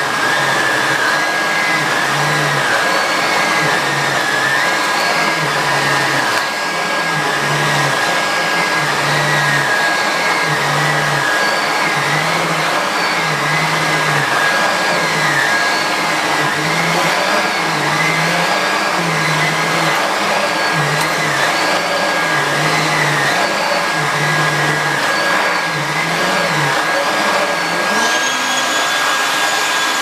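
Nilfisk GM80 canister vacuum cleaner running steadily as its floor nozzle is pushed back and forth over a shag rug, the motor note wavering with each stroke about once a second. Near the end the nozzle is lifted off the rug and the motor note rises and holds higher.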